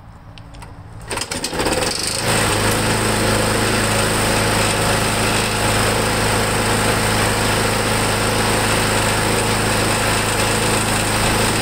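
McLane mower's Briggs & Stratton Quantum single-cylinder engine starting about a second in, then running steadily at a constant speed. It runs well on its newly fitted replacement carburetor.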